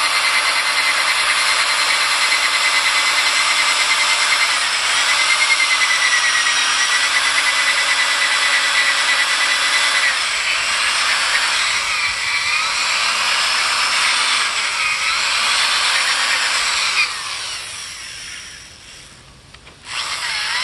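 Milwaukee Hole-Shooter corded drill spinning an abrasive wheel at low speed against wet glass pool tile, scrubbing off calcium deposits: a steady whine over the wet grinding of the wheel. About halfway through its pitch starts to rise and fall. Near the end it cuts out and dies away, then starts up again.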